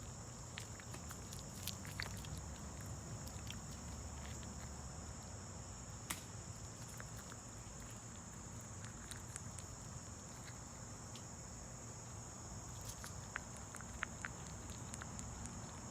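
Faint steady high-pitched insect trilling, like crickets, with a few scattered small clicks and soft patter.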